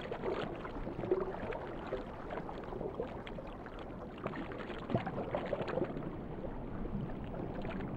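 Muffled water sound heard underwater: a steady wash with soft gurgles and small scattered ticks, as the seal swims through the sardine shoal.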